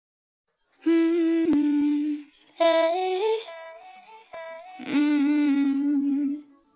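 Intro of a dance remix: a humming voice holds three long notes, the second sliding upward, with a couple of faint clicks in between.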